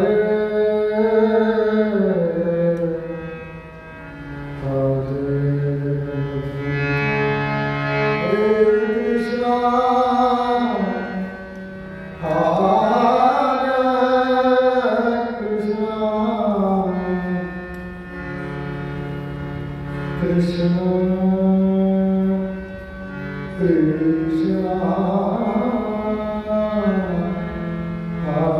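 A man singing a devotional prayer in long, slow, melismatic phrases to his own harmonium accompaniment, the harmonium's reeds holding steady chords under the voice. The singing pauses briefly between phrases while the harmonium sustains.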